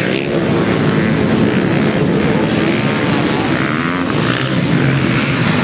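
Many motocross dirt-bike engines running and revving at once, their pitches rising and falling over one another as the bikes race past.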